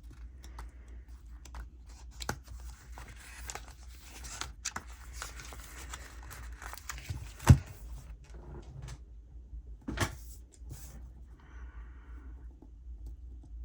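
Paper sticker sheets handled and a sticker box peeled off its backing: light rustling, crinkling and small clicks, with a sharp tap about halfway through and a softer one a little later.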